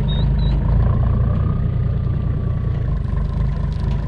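Ute engine running steadily with a low rumble as it drives, with a few short high chirps in the first half second.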